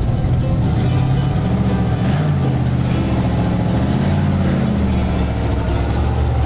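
A 4x4's engine running at crawling speed as it is driven through a crack in the slickrock, its pitch rising and falling a couple of times as the throttle is worked.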